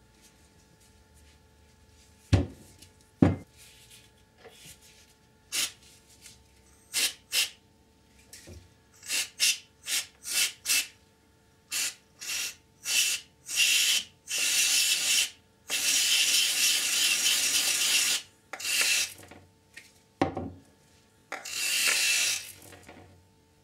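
Aerosol spray can hissing into the needle-bearing bores of a dirt bike shock linkage, first in many short squirts and then in longer blasts of a second or two, the longest about two and a half seconds, flushing out old grease. Two knocks near the start as the part is handled.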